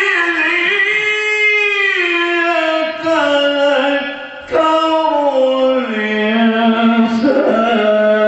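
A man's solo Quran recitation (tilawa), melodic and unaccompanied: long, ornamented held notes that glide in pitch. He pauses briefly for breath a little past the middle, then resumes on lower notes.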